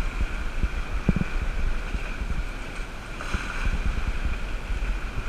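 Wind buffeting an action camera's microphone in a steady low rumble, with the sea washing against the rocks below.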